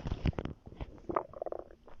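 A pregnant woman's stomach gurgling: a quick run of irregular pops and crackles, then a short bubbling gurgle about a second in.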